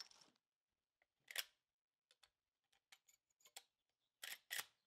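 Sharp metallic clicks and clacks from the action of a Marlin 336 lever-action rifle being worked by hand. The loudest click comes about a second and a half in, light ticks follow, and two quick clacks come near the end.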